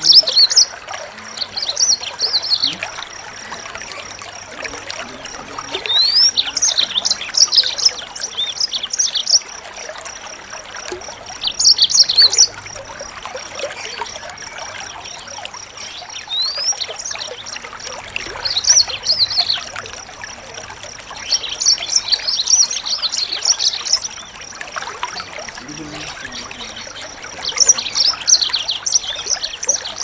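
A small songbird singing in repeated bursts of rapid, high chirps and trills, about eight in all, with a couple of quick rising whistles among them. Underneath runs a steady hiss of trickling water and a thin steady high tone.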